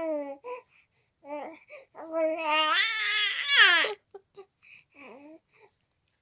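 Three-month-old baby babbling and cooing in short high-pitched bursts, with one longer, louder cry-like vocalization about two seconds in.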